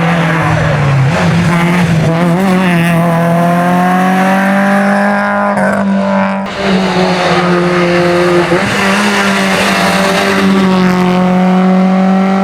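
Hillclimb race car engine at high revs, its note climbing steadily as it accelerates, with a brief break about six seconds in where it changes gear.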